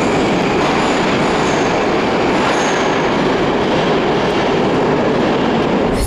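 Moscow Metro train running in the station, a loud steady rumble of wheels on rail with faint high squeals now and then.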